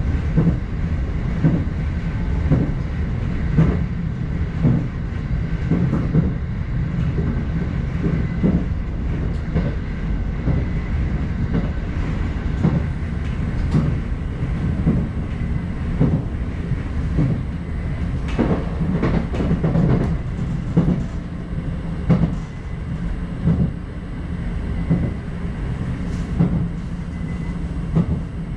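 Electric commuter train running at speed, heard from inside the leading car: a steady rumble of wheels on rail, broken by frequent clacks as the wheels pass over rail joints.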